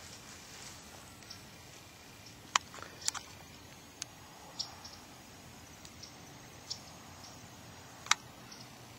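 Quiet outdoor background with about six short, sharp clicks at irregular intervals.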